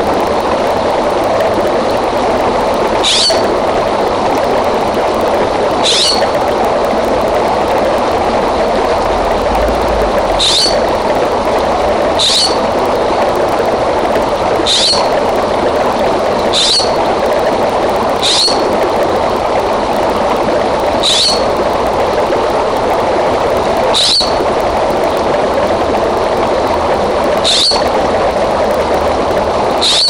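A creek running steadily, with a bird repeating one short, sharp, falling chirp every two to three seconds, about eleven times.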